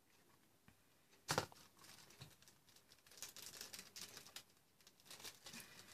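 A single sharp knock about a second in, then irregular rustling and crinkling of packaging as the pyjama set's pieces are handled and unwrapped.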